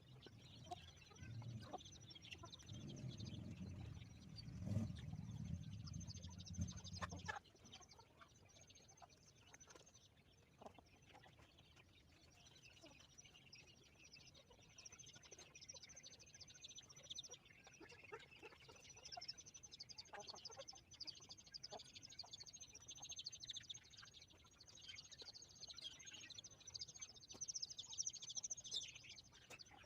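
Free-range village chickens quietly clucking and chirping as they peck at corn, with scattered short pecking clicks. A low rumble fills the first seven seconds or so, then stops.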